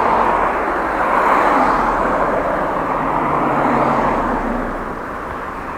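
Road traffic: cars driving past on the road ahead, a continuous rush of tyre and engine noise that swells and fades as vehicles pass and eases near the end.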